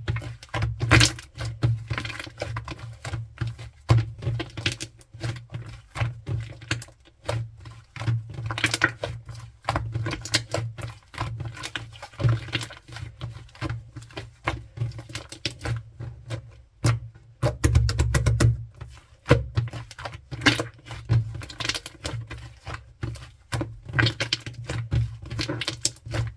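Hands pressing, squishing and stretching foamy shaving-foam slime, giving dense, irregular sticky clicks and crackles over soft low thuds.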